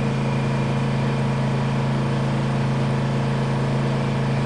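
Honda portable generator running at a steady, even speed on its eco throttle, carrying the load of a battery charger.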